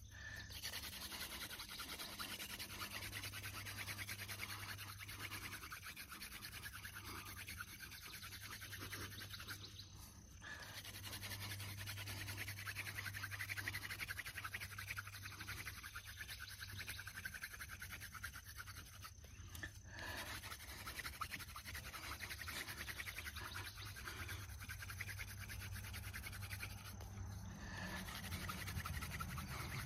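Hand-drill friction fire: a sunflower-stalk spindle spun between the palms, grinding into a dry conch bracket fungus (Fomitopsis ochracea) hearth, giving a steady rasping rub. It breaks off briefly three times, where the hands go back to the top of the spindle.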